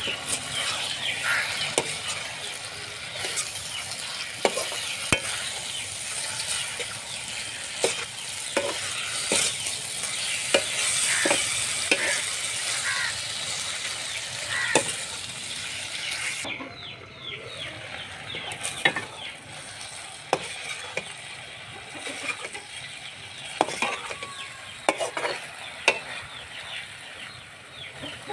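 Potato slices sizzling as they fry in a steel kadai, stirred and turned with a perforated steel skimmer that clinks and scrapes against the pan again and again. The high sizzling hiss drops away suddenly a little over halfway through, leaving mostly the scraping and clinking.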